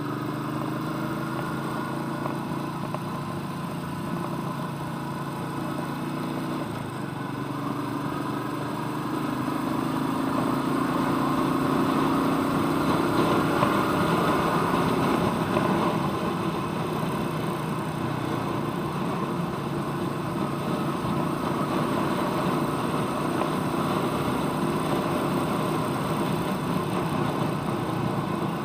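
Royal Enfield Meteor 350's single-cylinder engine running, its note rising and getting louder about a third of the way in, then easing back to a steadier run.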